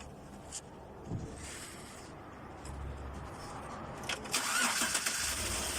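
Chevrolet Suburban engine turned over by its starter for a compression test on cylinder 6. The sound is a steady low rumble that grows louder about four seconds in. The test shows the cylinder has no compression.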